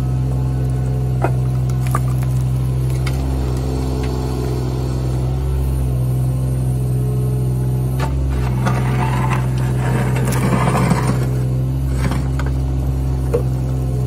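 A John Deere 26G mini excavator's diesel engine running steadily while it digs, its pitch holding under hydraulic load. Scattered sharp knocks and scrapes of the steel bucket against dirt and chunks of old driveway, with a rougher rattle of spilling rubble about nine to eleven seconds in.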